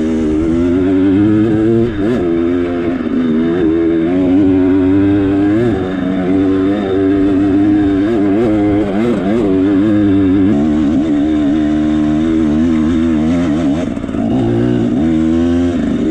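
Enduro motorcycle engine heard from on board, running under constantly changing throttle: its pitch rises and falls every second or so as the rider works the bike along a narrow mountain trail.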